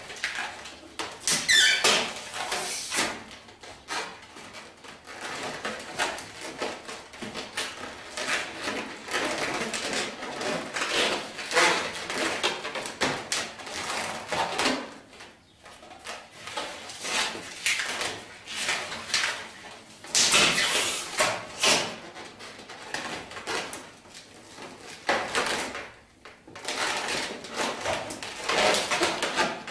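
Latex 260 modelling balloons squeaking and rubbing against each other as they are twisted and pressed into place by hand, in irregular runs of squeaks with a couple of short pauses.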